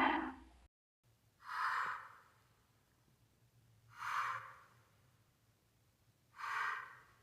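The tail of a loud pitched monster roar cuts off, and after a short gap a creature's breathing sound effect begins: three slow, hissing breaths about two and a half seconds apart, over a faint low hum.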